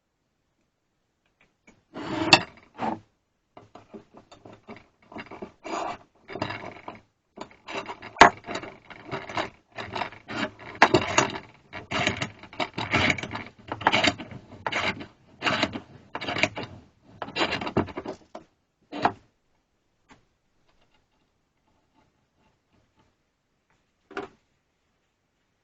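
Repeated hand rubbing or scraping strokes, uneven and about one to two a second, running for some seventeen seconds and then stopping; two short single strokes follow near the end.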